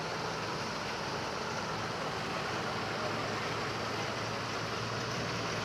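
Heavy diesel truck carrying a drilling rig, its engine running steadily with a low hum as it creeps slowly forward.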